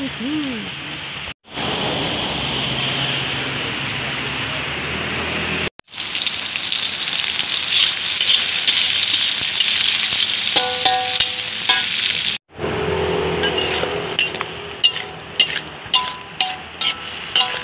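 Shallots, garlic and chilli sizzling as they stir-fry in oil in a metal wok. Near the end, after the snail meat goes in, a metal spatula repeatedly knocks and scrapes against the wok as it is stirred.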